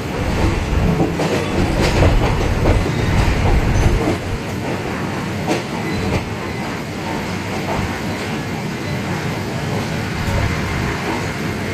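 Thai ordinary passenger train moving off, its wheels rumbling and clacking over the rail joints. The rumble is heaviest in the first four seconds, then settles.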